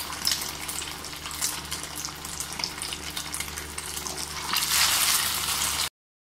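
Egg-coated chicken kababs deep-frying in hot oil in a karahi, a steady sizzle with crackles. The sizzle grows louder about four and a half seconds in as another kabab is lowered into the oil, then the sound cuts off suddenly.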